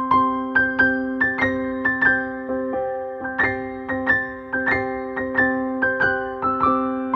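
Music on a piano-like keyboard: a quick repeating melody of struck notes, about three a second, over a steadily held low chord.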